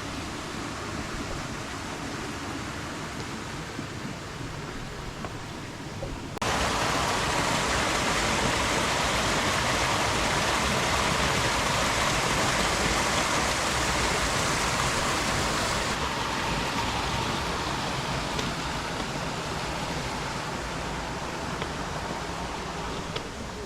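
Small creek waterfall with water rushing in a steady hiss. It turns suddenly louder and brighter about six seconds in, then eases a little after about sixteen seconds.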